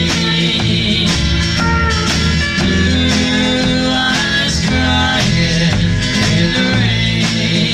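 Band music: a country ballad played on drums, bass and guitar, with a steady beat.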